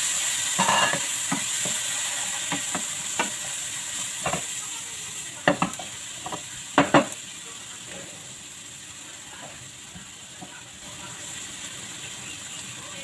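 Chopped garlic sizzling in butter in a wok while a wooden spatula stirs it, clicking and knocking against the pan, with a few sharper knocks about halfway through. The sizzle slowly fades.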